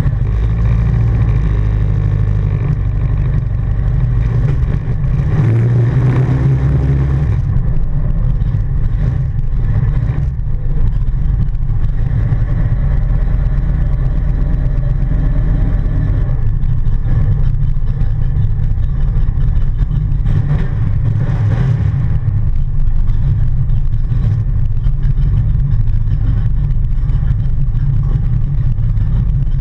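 Jersey speed skiff's inboard engine running steadily at speed under way, heavy and low, with wind and water rushing past the boat. A louder rush comes in about five seconds in and lasts some two seconds.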